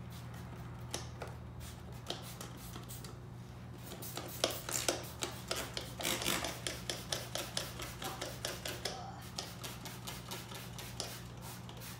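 Hand rubbing and scraping on a rubber window seal: short, irregular scuffs a few times a second, starting about four seconds in, over a steady low hum.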